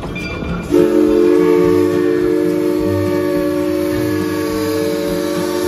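Steam locomotive whistle sounding one long, loud chord of several notes. It starts suddenly about a second in and holds steady.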